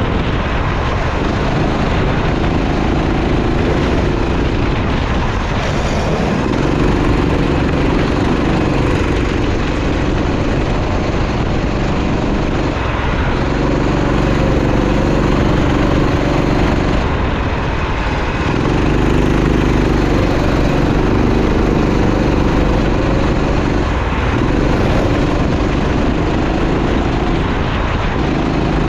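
Go-kart engine running flat out on a lap. Its pitch drops and climbs back about every five to six seconds as it slows for corners and accelerates out, under a steady hiss.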